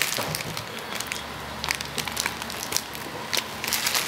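Rustling and crackling from a handheld camera being moved and handled, with many short, irregular clicks over a steady hiss.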